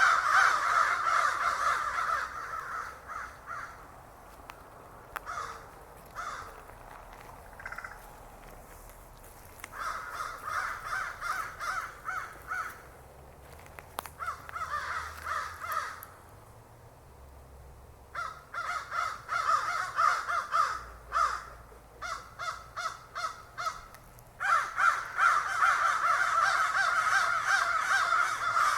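Crows cawing in bouts of rapid, repeated harsh caws, dense at the start and again toward the end, with quieter gaps between the bouts.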